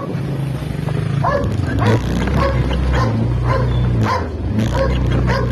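A dog barking repeatedly, roughly twice a second, over the steady low running of a motorcycle engine.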